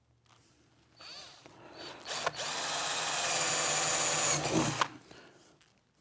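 Cordless drill boring a hole into a wooden board. A short spin-up comes about a second in, then a steady motor whine as the bit cuts for about two and a half seconds, stopping suddenly near the end.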